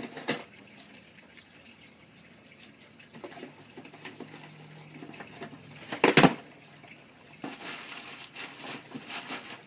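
A cardboard shipping box being opened by hand: scraping and scratching along the packing tape, a loud tearing noise about six seconds in as the box comes open, then crinkling of a plastic packing bag being pulled out.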